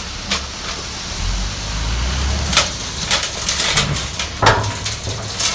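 Scattered clicks and scrapes of plastic toy trucks being handled in sand, over a low rumble.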